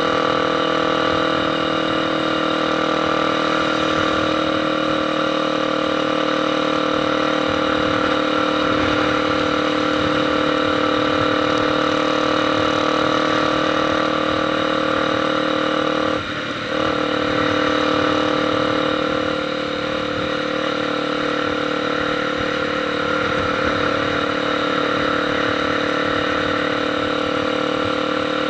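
Motorcycle engine running at a steady speed. Just past halfway the sound briefly dips, then it runs on at a slightly lower pitch.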